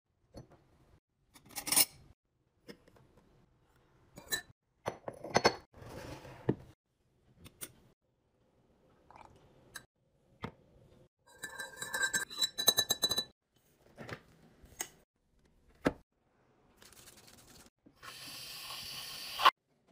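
Ceramic and glass kitchen items handled and set down on a granite countertop: scattered separate knocks and clinks, then a quick run of ringing clinks about twelve seconds in. A steady hiss lasts about a second and a half near the end.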